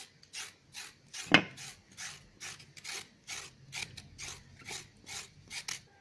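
A carrot being lightly peeled: quick rasping scrapes, about three a second, with one louder stroke about a second in.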